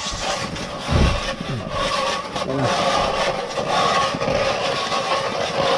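Hand-cranked ice auger's steel spiral blade grinding and scraping as it is turned down into lake ice, a steady scraping with a dull thump about a second in.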